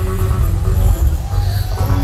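Loud pop dance track played over a nightclub sound system, with heavy bass and short held synth notes.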